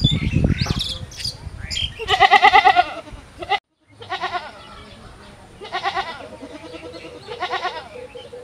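Goats bleating again and again: one long quavering bleat, then several shorter ones about one and a half seconds apart. A low rumble comes in the first second or so.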